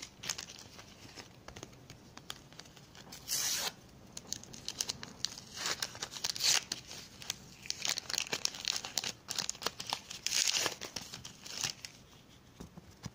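Paper sticker-pack wrapper being torn open and crinkled by hand, in several spells of ripping and rustling with small clicks between, the loudest about six and a half seconds in.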